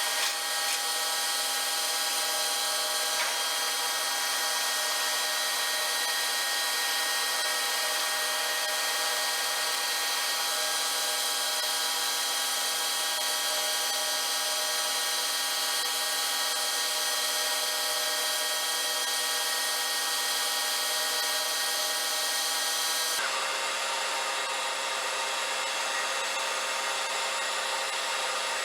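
A metalworking machine tool running steadily, with a hiss over many steady whining tones. About 23 seconds in the sound changes abruptly to a different steady hum.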